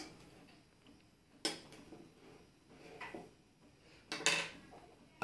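Kitchen bowls and a fork being handled on a table: a handful of separate knocks and clinks about a second apart, the loudest two close together about four seconds in.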